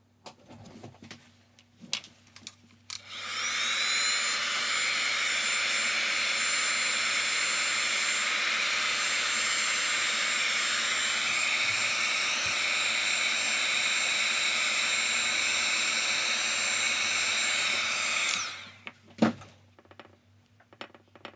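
Handheld hot-air dryer blowing steadily over a wet watercolour painting to dry the paint. Its motor whine rises as it switches on about three seconds in and falls away when it is switched off near the end. Light clicks and knocks come before it, and a single thump comes just after.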